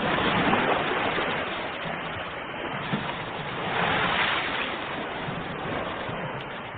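Ocean waves breaking and washing on the shore, a steady rush of surf that swells twice, at the start and again about four seconds in.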